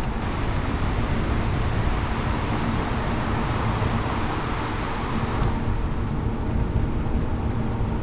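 Steady road and engine noise heard inside the cabin of a moving Audi A5. The higher hiss eases a little a bit past halfway.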